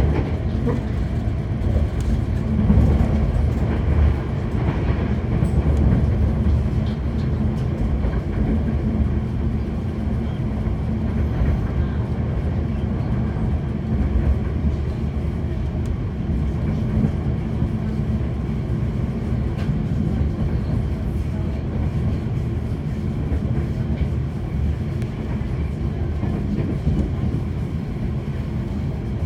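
Steady running noise of a commuter train heard from inside the carriage: wheels on the rails and a continuous low rumble.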